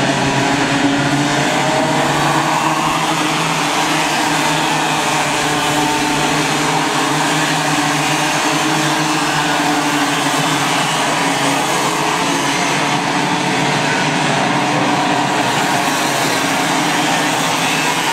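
A pack of Raket two-stroke racing kart engines running at speed together. It is a steady, overlapping engine note whose pitches drift up and down slightly as the karts accelerate and lift through the corners.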